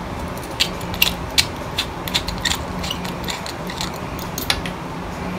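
Small irregular clicks of a wine-bottle LED cork light's screw-on battery cap being twisted off by hand, over a steady low hum.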